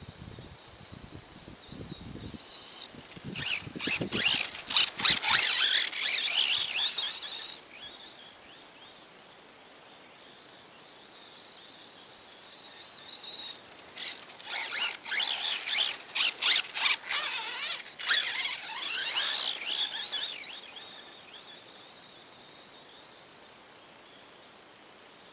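Axial EXO Terra radio-controlled buggy driving past twice, its electric motor and gears giving a high-pitched whine that rises and falls with the throttle for several seconds each pass. A faint steady high chirring sits underneath.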